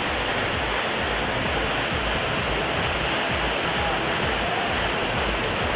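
Mountain waterfall: a steady, even rush of water pouring down the rock face.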